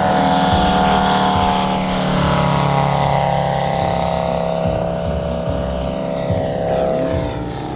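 Valach VM-250 five-cylinder radial engine and propeller of a half-scale RC Bücker Jungmeister biplane running at power in flight. Its pitch drops through the middle and rises again near the end.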